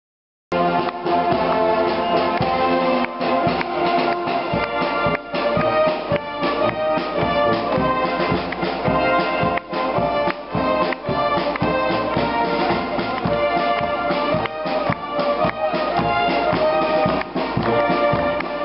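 Live wind band playing, led by trumpets and trombones with drum, starting abruptly about half a second in.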